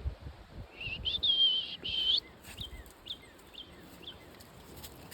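A songbird calling: one long high whistle that wavers in pitch for about a second and a half, then about four short, downward-slurred chirps about half a second apart.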